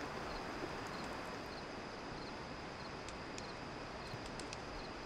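Night-time woodland ambience: crickets chirping in an evenly repeating pulse over a soft steady hiss, with scattered small sharp crackles from a campfire.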